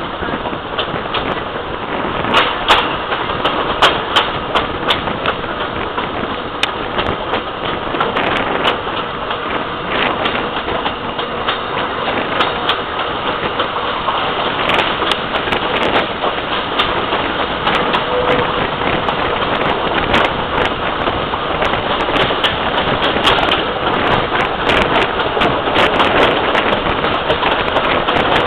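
Train carriage running along the track, heard from its open side: a steady rumbling rattle with frequent irregular clicks and knocks.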